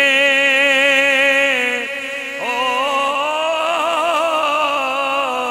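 A man singing a Punjabi devotional verse in a slow, drawn-out style. He holds a long note with a wavering vibrato, breaks off about two seconds in, then slides up into another long wavering note.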